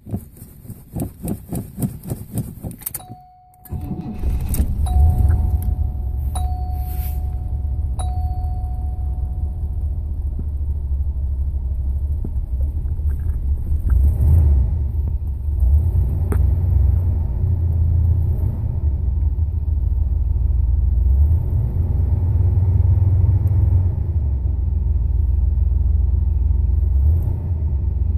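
Car engine cold start: the starter cranks for about three seconds, the engine catches just under four seconds in and settles into a steady low idle. A chime dings four times as it fires up.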